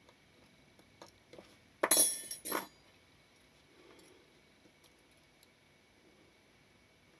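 Small metal parts and tools clinking and clattering against the shutter's metal plate, in two quick bursts about two seconds in, after a few light ticks.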